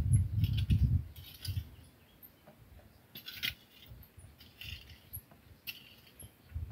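Metal garden rake dragged through dry soil in a few short strokes, its tines scraping and clinking, the loudest stroke about three and a half seconds in. A low rumble fills the first second.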